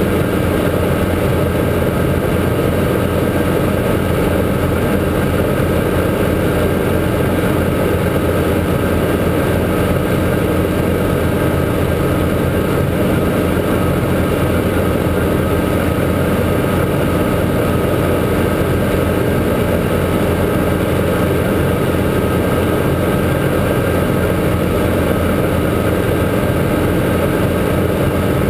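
Guimbal Cabri G2 helicopter's four-cylinder piston engine and rotors running, a steady, even drone with a fast flutter, as in cruising flight.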